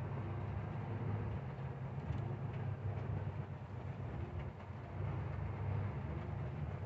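Truck's diesel engine running at low speed with a steady low drone, over a hiss of rain and tyres on the wet road.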